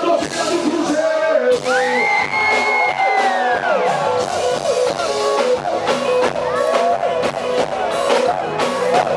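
Loud band music with a singer, a steady drum beat and guitar; a long sung note rises and falls about two seconds in.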